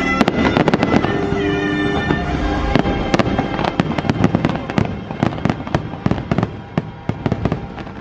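Fireworks display: a dense run of bursts and crackles over the show's music, thinning out over the last few seconds.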